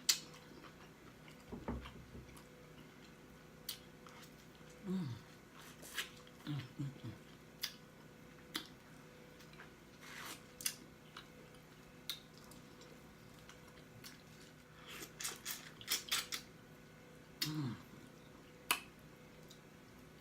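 Mouth noises of someone eating: lip smacking and lip popping, heard as irregular sharp smacks and clicks that come in a quick flurry about three-quarters of the way through. A few short, falling hums of the voice come in between.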